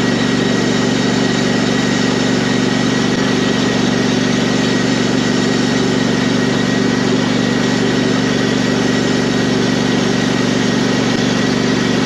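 Ride-on lawn tractor's engine running at a steady speed as the tractor drives along.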